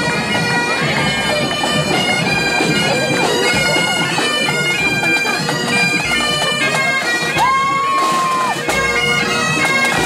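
A pipe band's Great Highland bagpipes playing a tune over their steady drones as the pipers march past.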